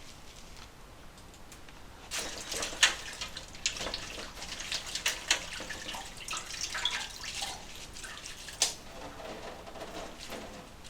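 Water splashing and dripping, with many short clicks and clinks starting about two seconds in, two of them louder than the rest.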